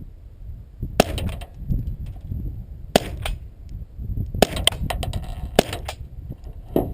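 Four shots from a .22 LR gun firing regular-velocity (not subsonic) rounds, spaced one to two seconds apart, each with a short ringing tail.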